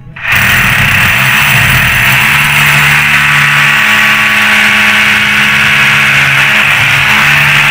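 Electric drill running under load, boring into a ceramic-tiled wall with a long masonry bit. It starts abruptly just after the start and runs steadily at a loud, even pitch with a low motor hum beneath.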